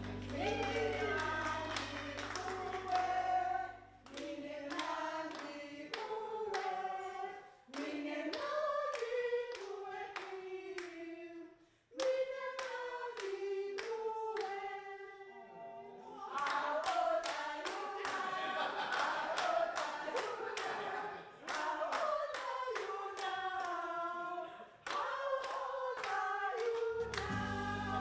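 A small group of voices singing a cappella in phrases, with handclapping keeping the beat.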